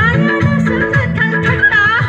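Song played loud through a PA system: a woman sings into a microphone over backing music with a regular beat and plucked strings.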